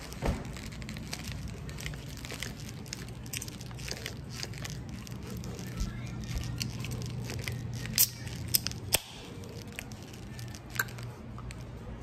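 Handling noise from a phone's microphone as it is moved and rubbed against a sweater sleeve: scattered clicks, crackles and rustling over a low steady hum, with a few sharper knocks about eight seconds in.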